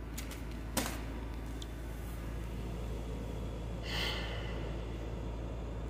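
A man breathes out once, short and audible close to the phone's microphone, about four seconds in, over a steady low room hum. A light click from handling the paper receipt and foam container comes about a second in.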